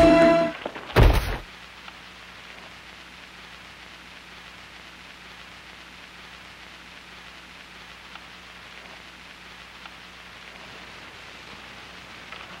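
A music chord cuts off and a single loud thump follows about a second in, a blow or body hitting the ground in a fistfight. After that only steady hiss with a faint low hum.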